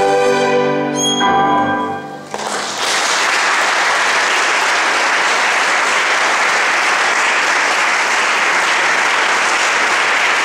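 Violin and piano play the closing notes of the piece, ending about two seconds in, followed by steady audience applause.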